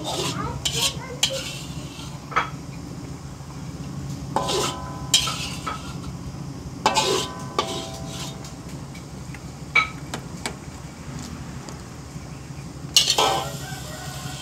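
A metal spatula scraping and knocking against a wok as fried shallots, garlic and ginger are scraped out of it, with several sharp clanks that ring briefly. A steady low hum runs underneath.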